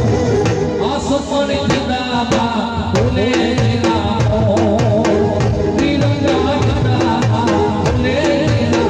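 Music with a steady drum beat under a melody.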